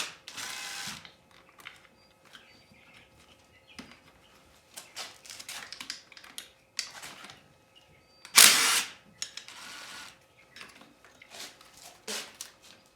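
Tool work on a motorcycle's bolts: many short mechanical clicks and clinks, with two loud, noisy bursts about a second long, one at the start and one about eight and a half seconds in.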